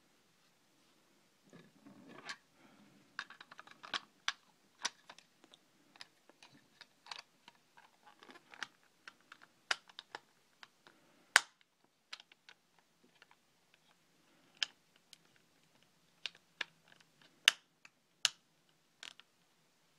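Irregular sharp plastic clicks and brief rustling as small camera parts and packaging are handled, the loudest clicks near the middle and towards the end.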